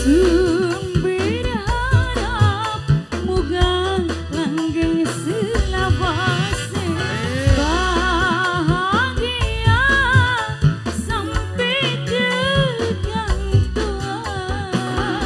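A woman singing a Pantura tarling song over a live band, her melody bending and ornamented, with a steady beat underneath.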